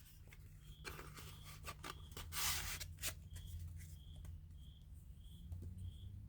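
Faint handling of a new folding knife being unpacked: scattered small clicks and a brief rustle of packaging, over a steady low hum.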